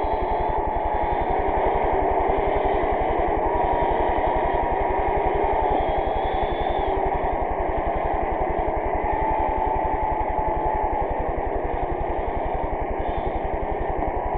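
Large stadium crowd cheering and applauding in a standing ovation, with a low buzz running underneath.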